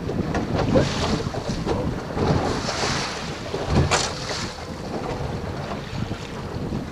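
Wind buffeting the microphone over choppy lake water slapping against a small boat's hull, with a brief thump about four seconds in.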